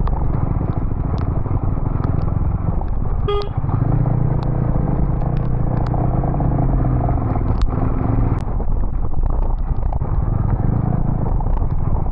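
Motorcycle engine running on the move, its pitch rising and falling with speed, under heavy wind rush on the microphone. A short beep sounds about three and a half seconds in.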